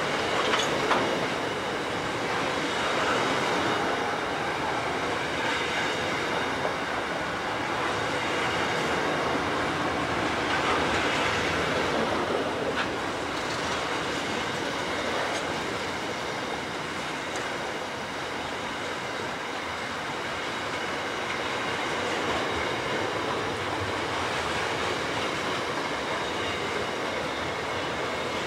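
Loaded container wagons of a freight train rolling past: a steady sound of steel wheels running on the rails, with a faint, thin, high wheel squeal throughout and a single sharp clank about halfway through.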